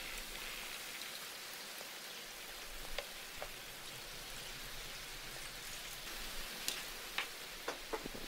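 Water splashing and dripping as a toy pistol is scrubbed and rinsed in a plastic tub: a steady soft hiss like light rain, with scattered drips and small clicks. A handful of sharper clicks come near the end.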